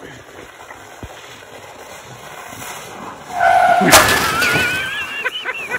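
A plastic sled hissing down a snowy slope, the sliding noise slowly growing louder. A short yell comes about three and a half seconds in, then a loud thump as the sled runs into the dog, followed by high wavering shrieks.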